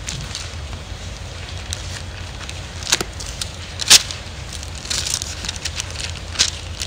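Bible pages rustling and being flipped as people look up a passage, with scattered crackles and two sharp clicks about three and four seconds in, over a low steady room rumble.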